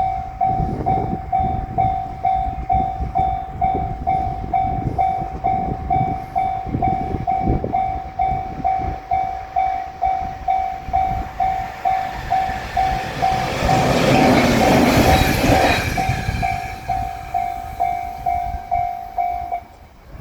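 Japanese railroad crossing bell ringing in a steady 'kan-kan' rhythm, about two strikes a second, while a train passes. A rushing swell of wheel and rail noise builds to its loudest about two-thirds of the way through, then fades, and the bell stops shortly before the end.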